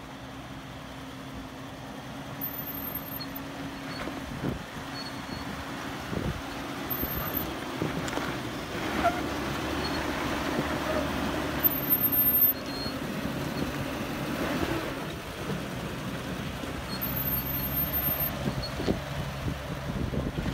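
Jeep Wrangler Unlimited's straight-six engine running at low revs as it crawls over a rocky trail, with a steady drone. Scattered clicks and knocks come from rocks shifting and cracking under the tyres.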